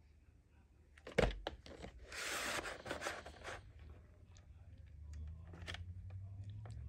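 A plastic VHS clamshell case knocks as it is snapped open about a second in, followed by a scraping rustle as the cassette is pulled out, then small plastic clicks of handling.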